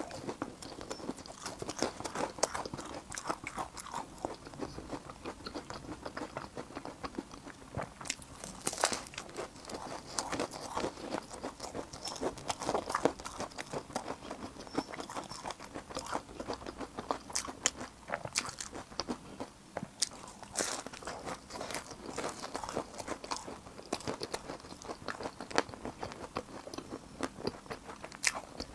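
Close-miked eating: a person biting and chewing crunchy food, with many quick, crisp crunches and crackles throughout.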